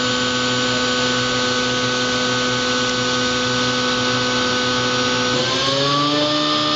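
Kitamura MyCenter 2X-if CNC machining center spindle running at speed, a steady whine over a hiss. About five seconds in, the whine rises in pitch and settles higher as the spindle speeds up from 15,000 toward 18,000 RPM.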